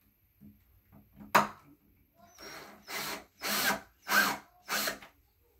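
A sharp click, then a power screwdriver run in five short bursts about half a second apart, driving a screw while furniture is assembled.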